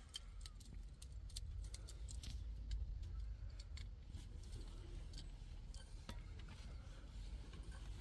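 Scattered small clicks and scrapes of a screwdriver and plastic fittings as an electrical socket is wired by hand, over a steady low rumble.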